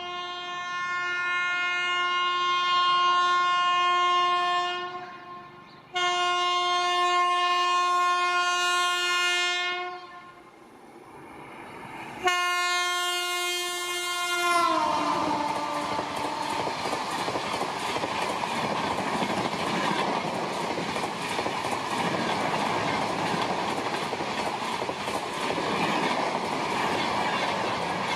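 An electric locomotive's horn sounds three long blasts as a high-speed train approaches. The third blast drops in pitch as the locomotive passes. The train then rushes by with a steady rattle of wheels over the rails.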